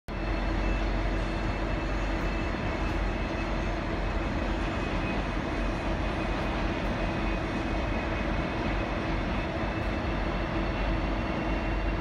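V/Line N class diesel-electric locomotive, with its EMD 12-645 V12 diesel, idling while standing at the platform: a steady engine rumble with a constant hum over it.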